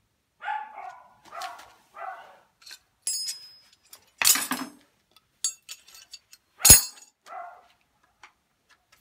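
Metal clanks and knocks from work on the tractor: a ringing clink, a heavy knock, then a sharp, loudest metallic bang about two-thirds of the way through. A dog barks four short times between them.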